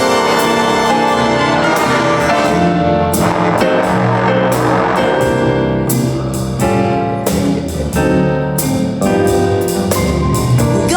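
Jazz big band playing a swing blues passage without vocals: saxophones and brass with piano, bass and drum kit, punctuated by regular drum and ensemble accents.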